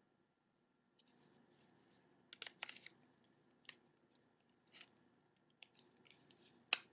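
Faint small plastic clicks and taps as a battery is handled and fitted into a UTStarcom-made AT&T Quickfire phone: a short cluster of clicks about two and a half seconds in, a few scattered ticks, and a sharper click near the end.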